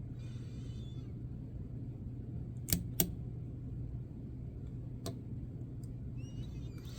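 Lock pick working in a padlock's keyway: brief scratching of the pick at the start and near the end, with a few sharp clicks, two close together about three seconds in and one more a couple of seconds later, over a steady low hum.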